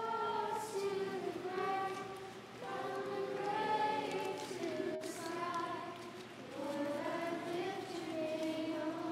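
A group of voices singing a song together, choir-like, in phrases of long held notes.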